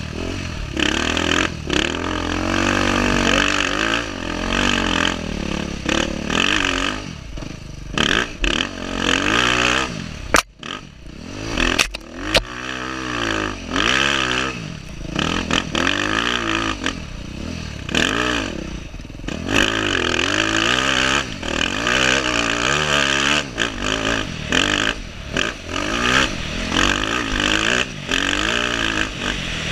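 Dirt bike engine revving up and falling back over and over as the rider works the throttle and gears through soft sand. The engine drops away briefly about ten seconds in before picking up again.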